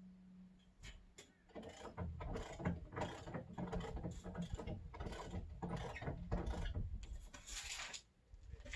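Truck camper's lifting jacks being cranked: a run of rapid mechanical clicking and grinding for about six seconds, with a short hiss near the end.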